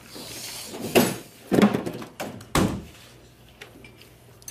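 Three dull thunks, roughly a second apart, with a short hiss just before the first.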